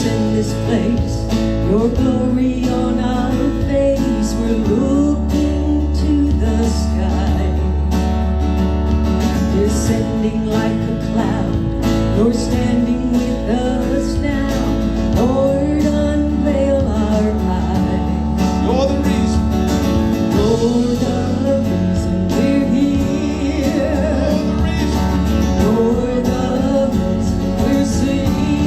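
A band playing a worship song with voices singing a melody over held bass notes, guitar and cymbals.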